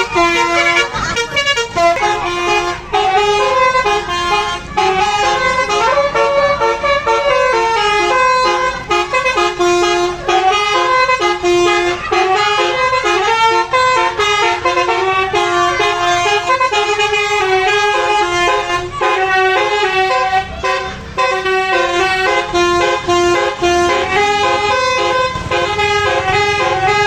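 Bus 'telolet' musical horn, a set of multi-trumpet air horns, playing a loud, fast run of changing notes, often several at once, without a break.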